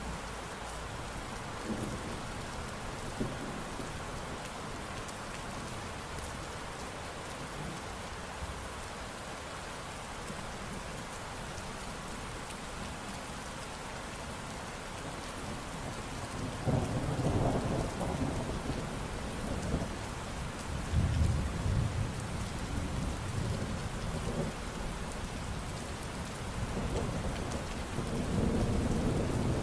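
Steady rain falling, with rolling thunder rumbling low from about halfway through and again near the end.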